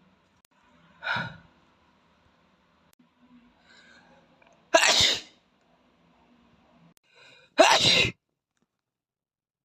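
A boy sneezing three times: a softer sneeze about a second in, then two full, loud sneezes around five and eight seconds in. Each is preceded by a faint drawn-in breath.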